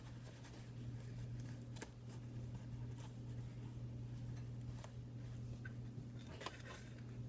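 Quiet room tone with a steady low hum, broken by a few faint, short clicks of handling.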